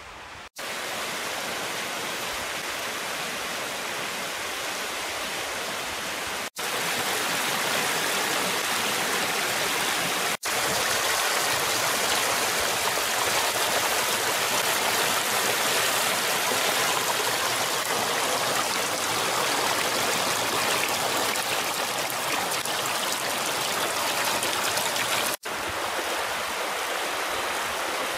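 Small mountain stream running over stones with a steady rushing sound, broken four times by split-second dropouts where shots are cut together.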